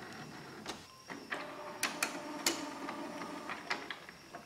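Canon PIXUS iX6830 inkjet printer starting up after being switched back on. Its motors whir for a couple of seconds from about a second and a half in, with several sharp clicks and clunks from the print mechanism as it initialises.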